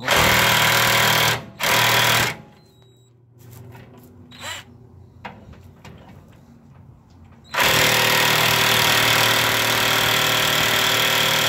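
Cordless impact wrench hammering on the nut of a sway bar end link: two short bursts at the start, then a long unbroken run of hammering from a little past the middle. The nut is very tight.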